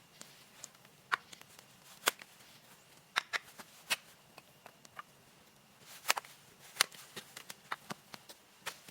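A series of sharp clicks and snaps at irregular intervals, the loudest about one, two, four and six seconds in.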